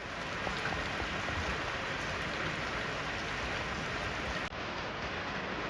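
Steady rain falling, an even hiss without pauses.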